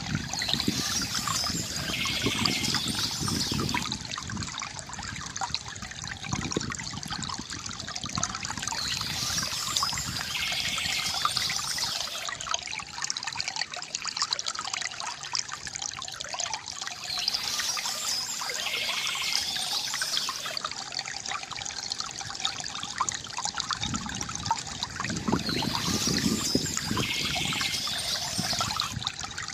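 River water trickling and gurgling steadily. Over it, soft bird chirping comes in passages about four seconds long that recur about every eight and a half seconds.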